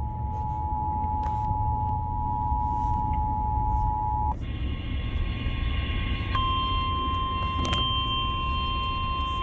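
Emergency Alert System two-tone attention signal, two steady tones sounding together, which about four seconds in switches to a single higher steady tone with overtones, growing louder about six seconds in, typical of the 1050 Hz weather radio warning tone. A steady low rumble runs underneath.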